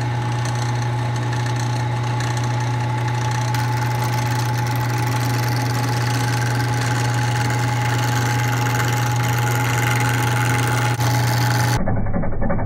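Craftsman wood lathe running steadily with a strong low hum and a steady higher whine. Near the end the sound turns rougher as a turning tool cuts the spinning maple blank.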